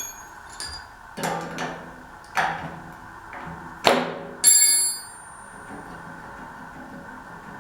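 Metal hand tools (sockets and wrenches) clinking and knocking as they are handled: a few sharp knocks, then a bright ringing clink about four and a half seconds in.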